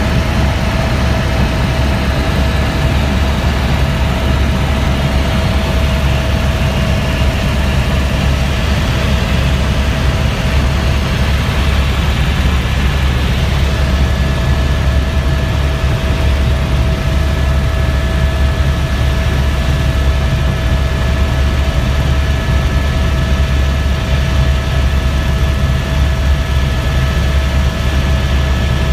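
Helicopter cabin noise in level flight: a loud, steady low drone of rotor and engine, with a constant thin high whine above it. The whine drops out briefly about twelve seconds in.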